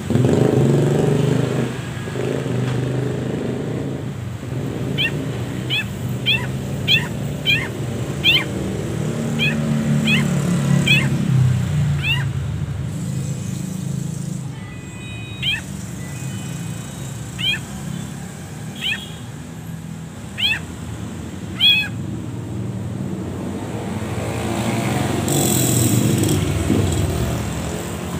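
Long-tailed shrike (cendet) giving a run of short rising calls, one or two a second, that start a few seconds in and stop several seconds before the end. They sound over a low engine rumble that is strongest in the first half.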